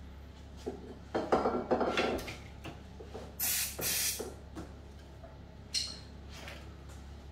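Handling clatter and knocks of objects on a table, then an aerosol spray can hissing for about a second near the middle, with a second short hiss a little later.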